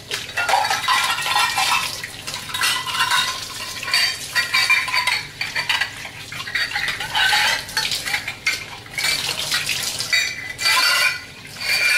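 Washing up by hand at the sink: bowls, dishes and utensils clinking and clattering against each other, a busy clattery run of knocks with short ringing tones.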